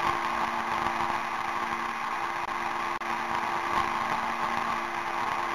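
Simulated engine sound of a Cirrus single-engine piston aircraft at climb power after takeoff, played by the flight simulator: a steady drone with a constant hum and no change in pitch.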